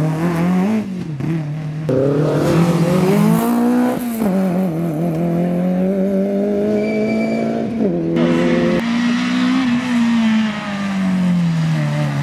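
Rally car engines, a Peugeot 106 and a Peugeot 205 among them, accelerating hard on the road, the engine note climbing and dropping again as the drivers shift gear. The sound jumps abruptly several times as it passes from one car run to the next.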